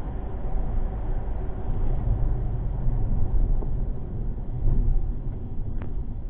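Steady low rumble of a car driving, heard inside the cabin, with a faint click shortly before the end.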